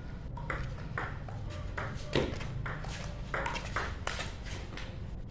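Table tennis rally: the celluloid ball clicks sharply off paddles and the table, about two to three hits a second, with one louder hit about two seconds in.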